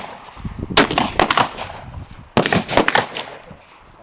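A run of gunshots, about six sharp cracks with short ringing tails, fired in two quick clusters a couple of seconds apart.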